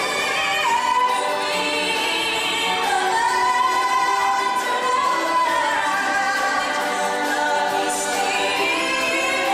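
Stage-show music with a choir of voices singing long held notes that shift in pitch every second or two.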